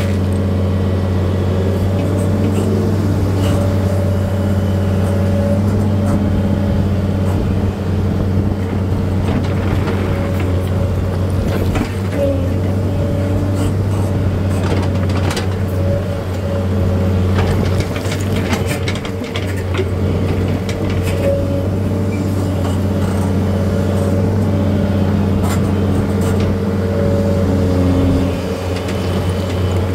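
The engine of a machine spreading stone, running steadily throughout, with scattered clicks and scrapes of stone over it.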